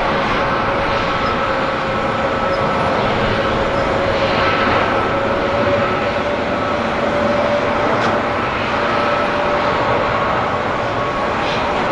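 Airbus A350-941's Rolls-Royce Trent XWB turbofans at climb power as the jet climbs away after take-off: a steady roar with a steady droning tone running through it.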